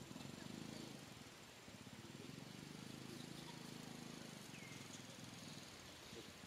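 Faint, low, rough engine hum that swells and eases over a few seconds, with one short high chirp about two-thirds of the way in.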